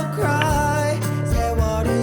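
Background music: a Korean-language pop song with a bass line under a sung or played melody.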